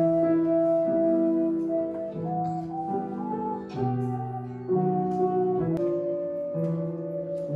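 A melody of steady held notes played on a small hand-held wind instrument, with a piano accompanying underneath.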